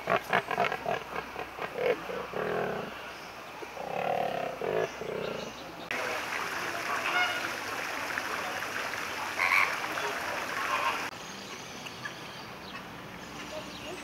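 Pelicans with a quick run of clicks, then a few low calls. About six seconds in this gives way to a flock of greater flamingos calling, a dense gabbling chatter with occasional louder honks, which stops about eleven seconds in.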